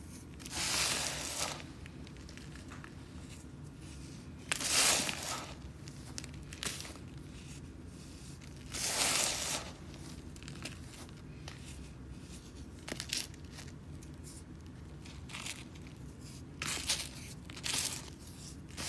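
Hands squeezing and crumbling clumps of dry, crunchy sand that fall back onto a sand mound: three longer crunching bursts about four seconds apart, then several shorter crunches near the end, over a faint low hum.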